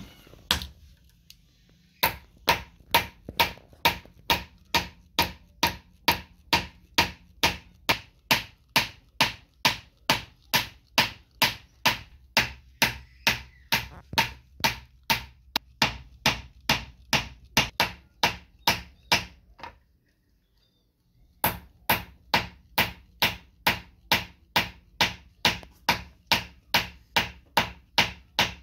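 Hammer blows on a silver ring piece held on a steel bench block: sharp, ringing metal-on-metal strikes at a steady pace of about two and a half a second. They stop for about a second and a half about two-thirds of the way through, then carry on at the same pace.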